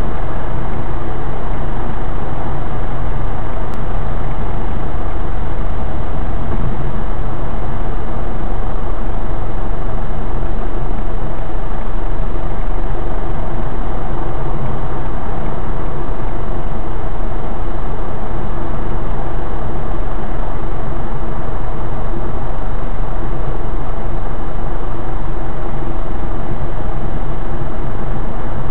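Steady road and engine noise of a car driving at a constant speed, heard from inside the cabin: a loud, unchanging noise with no sudden events.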